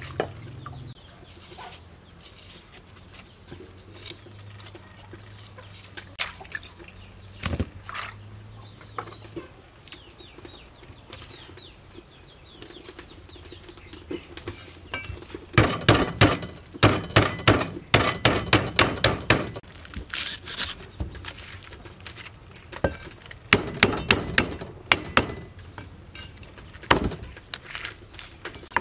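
Cleaver chopping lemongrass stalks on a wooden chopping block: a fast run of sharp strokes, about four a second, from about halfway through, and another shorter run near the end. Chickens cluck in the background.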